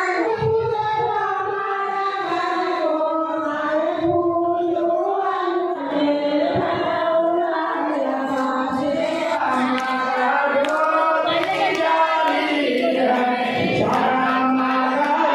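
A group of devotees singing a Hindu devotional hymn together in chorus, with sharp claps or strikes joining in from about halfway through.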